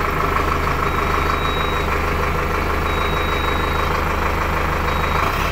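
Sonalika Tiger DI 55 tractor's four-cylinder 4084 cc diesel engine idling steadily at about 1000 rpm.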